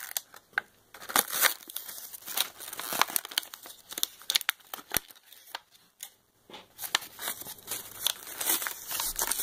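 Clear plastic blister packaging crinkling and crackling in irregular sharp bursts, with tearing, as a cardboard-backed toy pack is pulled open by hand.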